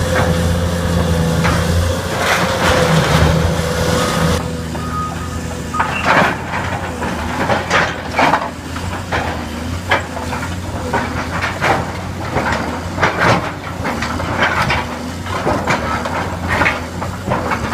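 A heavy demolition machine's diesel engine runs steadily with a whine. From about five seconds in come repeated irregular crashes and crunches as the building is torn down.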